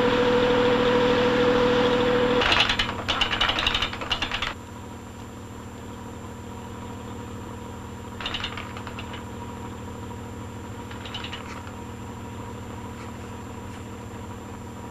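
Fishing trawler's engine running. At first it is loud, with a steady held tone over it. About two and a half seconds in comes a couple of seconds of rapid rattling clicks. Then it drops to a lower, steady hum with brief rattles twice.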